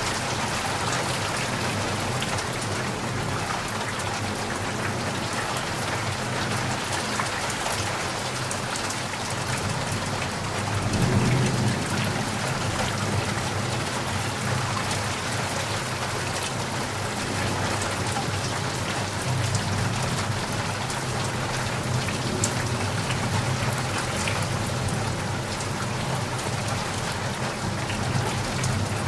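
Steady, heavy rain falling. A low rumble swells up about eleven seconds in and again later.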